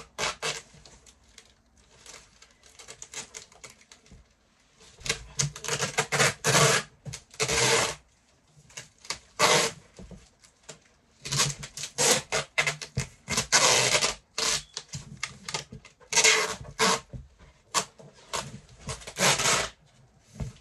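Brown packing tape being torn off the roll in repeated loud rips and pressed and rubbed down onto a cardboard box, with short pauses between strips.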